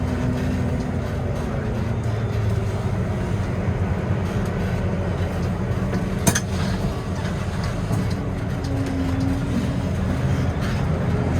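Tractor engine running steadily, heard from the cab, as a low drone. A single sharp click about six seconds in.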